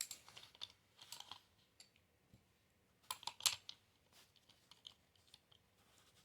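Light, irregular clicks and short metal scrapes of a hand tool and small parts as the pistol grip is worked off an AR-15 lower receiver, in three brief clusters with the loudest near the middle.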